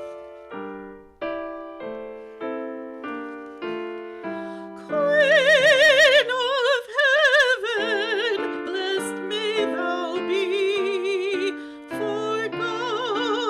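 Piano introduction of evenly repeated chords, then a high classical voice with wide vibrato enters about five seconds in and sings an art song over the piano accompaniment.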